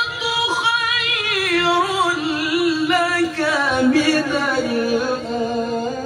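A male Qur'an reciter's voice in melodic tajwid recitation, holding one long drawn-out line with quick ornamental wavers. The pitch sinks gradually from high to low over the few seconds.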